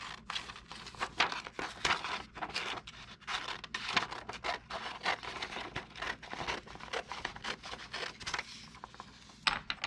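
Scissors cutting through a sheet of printer paper: a long run of irregular snips, with the paper crinkling as it is held and turned.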